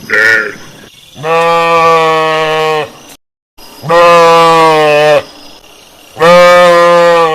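Sheep bleating: a short call, then three long, low, steady baas of about a second and a half each.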